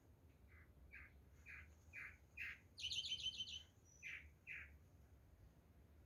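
A bird calling: a series of short notes about two a second that grow louder, broken about three seconds in by a fast, higher-pitched trill, then two more notes.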